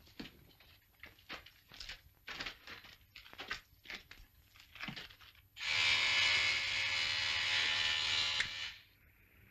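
Footsteps, a couple a second, then a little past halfway a loud, steady electric buzz that stops sharply about three seconds later: the call buzzer of a desk television monitor signalling an incoming picture.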